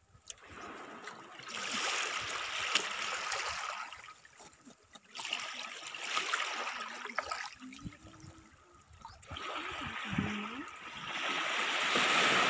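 Shallow seawater sloshing and trickling in three surges of a few seconds each, with quieter gaps between.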